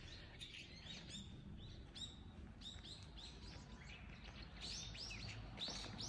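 Small birds chirping and singing: a steady run of short, high notes, one after another, over a faint low background of outdoor noise.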